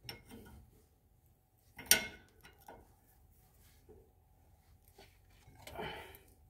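Hand wrench working the U-bolt nuts on the driveshaft's rear U-joint, with one sharp metal knock about two seconds in and softer clicks and rustling around it.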